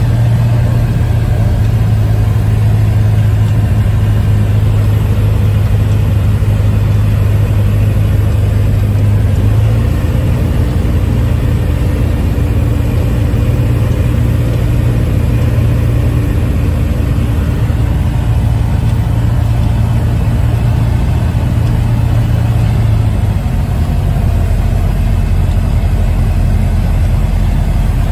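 Light aircraft's piston engine and propeller heard from the cockpit, running steadily at climb power just after takeoff. The engine note shifts in pitch about ten seconds in and again a few seconds before the end.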